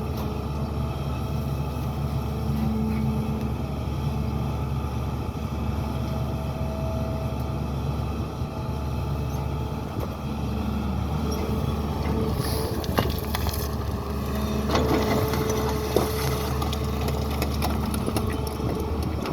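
SANY excavator's diesel engine running steadily under work. From about twelve seconds in, a series of sharp knocks and clanks joins it.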